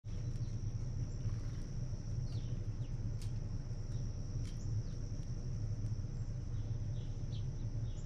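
Outdoor ambience dominated by a steady low rumble, with a steady high-pitched thin whine above it. A few short, quick chirps from small birds at the seed feeder come through over it, along with scattered faint clicks.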